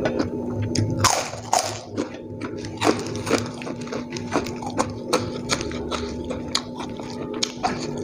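Close, open-mouthed wet chewing and lip smacking of rice and smashed fried chicken (ayam geprek) eaten by hand, with many small clicks and a louder breathy slurp about a second in.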